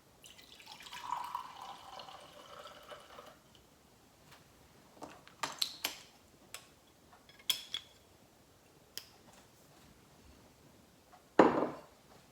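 White wine poured into a glass for about three seconds, followed by several light glass clinks and a loud knock near the end.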